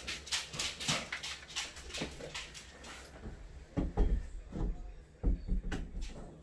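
A run of light knocks and clicks, then several louder, dull thumps about four seconds in, as timber is handled and fitted against the stud framing inside a wall opening.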